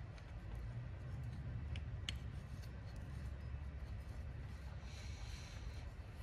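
Small metal parts, a steel bracket and washer on a brake cable, handled by hand: a few faint clicks about two seconds in and a light scraping rustle near the end, over a steady low hum of room tone.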